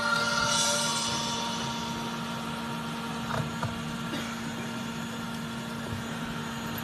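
Steady blowing rush and hum of a hot air rework station, with a few faint clicks a little past three seconds in; background music tails off in the first second.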